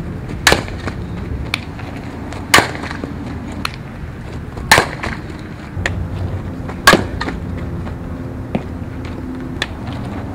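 Softball bat striking pitched softballs on chopper swings: four sharp cracks about two seconds apart, each followed by a few fainter ticks.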